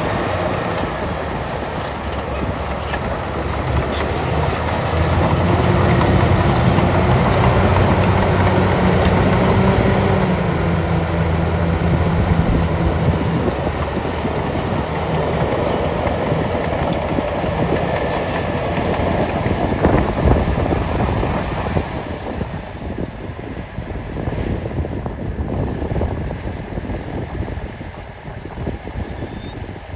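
Heavy diesel earthmoving machinery running with a deep rumble and clatter. A steady engine note swells and is loudest for several seconds near the start, then fades, leaving a rougher, quieter rumble toward the end.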